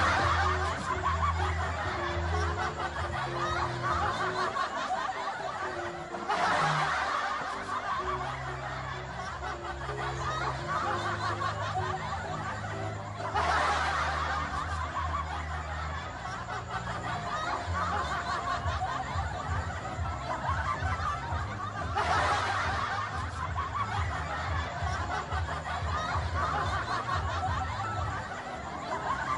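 Added comedy laughter sound effect, a group laughing, that starts over again every several seconds, over background music.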